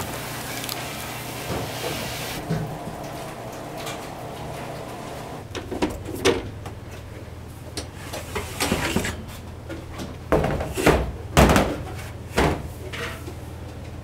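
Metal baking trays sliding along oven rack rails and knocking against the racks, a run of sharp clatters and scrapes in the second half, the loudest a few seconds before the end.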